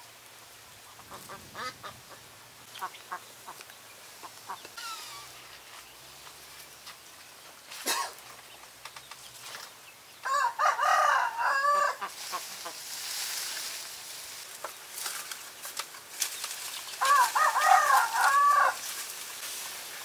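A rooster crowing twice, each crow under two seconds long and about seven seconds apart, the first about halfway through. Leaves rustle faintly between the crows.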